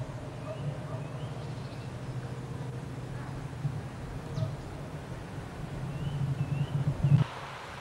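Outdoor ambience on a camcorder microphone: a steady low rumble with a few faint, short bird chirps. The rumble swells just before it cuts off abruptly near the end, and a softer hiss takes over.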